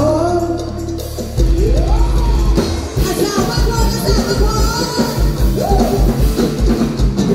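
Live band music through a stage PA: a held low note, then a steady heavy bass-drum beat comes in about a second and a half in, with a singer's voice over it.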